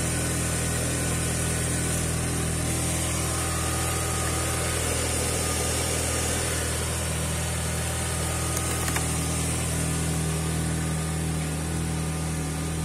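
Ford Mondeo's 1.8-litre Duratec HE (CHBB) four-cylinder petrol engine idling steadily.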